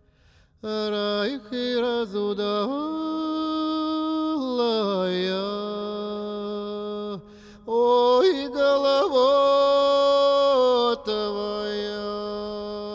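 Soundtrack music: a solo voice singing long held notes in a slow, chant-like line, with gliding changes of pitch. It comes in two phrases, with a short break about seven seconds in.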